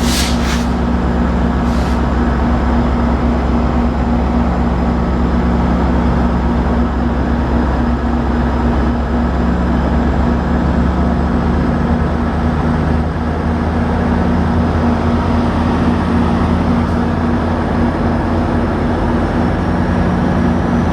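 GO Transit commuter train's diesel locomotive running steadily at a standstill, a loud continuous low engine drone with a steady hum, and a faint high whine slowly rising in pitch over the second half.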